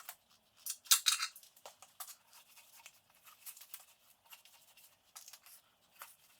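Light scraping, rustling and clicking of objects being handled, with the loudest scrape about a second in.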